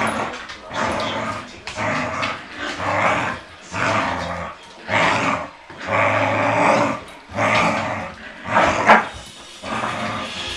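Dogs growling in play over a tug-of-war rope toy, in a string of about ten growls roughly one a second.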